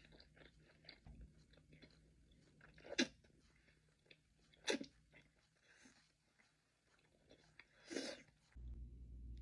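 Close-miked eating for ASMR: steady small chewing and mouth clicks, with three loud crunching bites spread through.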